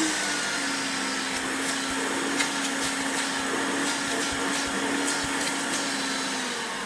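Hoover Turbo Power 2 Autosense upright vacuum cleaner running with a steady motor whine and rushing air. Its pitch dips slightly about half a second in, and it begins to wind down near the end as it is switched off.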